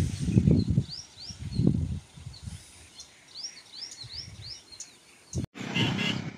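Wind gusting against the microphone in low rumbles, loudest in the first two seconds, while a bird repeats short rising chirps. About five and a half seconds in, the sound cuts abruptly to a louder, even hiss.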